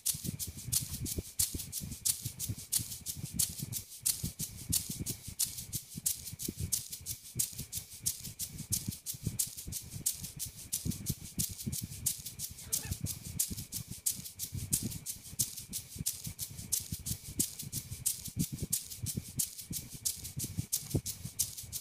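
Background music led by a fast, even shaker-like rattle, about five strokes a second, with soft low thumps beneath.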